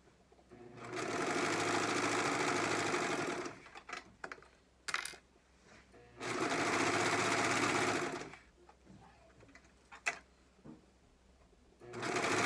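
Brother 1034D serger running in two bursts of about two to three seconds each as it stitches a seam. Small clicks and fabric handling fill the pauses between, and the machine starts up again near the end.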